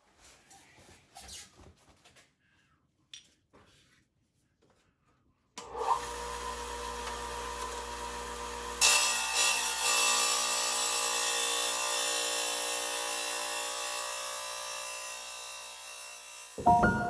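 A few light handling knocks, then a SKIL wet tile saw's motor starts about five and a half seconds in and runs steadily. A few seconds later the blade bites into the glass murrine stack, adding a loud, high grinding hiss that slowly eases off as the cut goes through.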